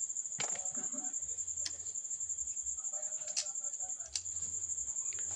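A cricket chirps in a steady high trill throughout. About four sharp plastic clicks sound over it as the selfie-stick tripod is handled.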